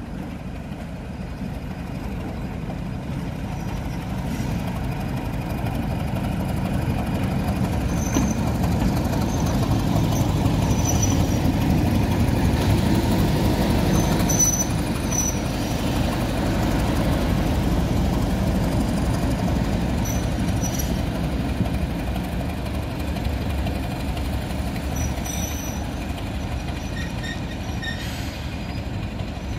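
Class 31 diesel-electric locomotive 31430 Sister Dora, its English Electric V12 engine running, passing at close range with its coaches. The sound builds to a peak about halfway through, then eases off a little. Short high wheel squeals come several times.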